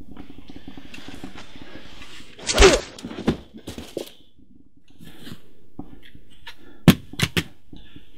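A short cry with a heavy thud, then a few light knocks; near the end a sharp crack followed by two smaller knocks.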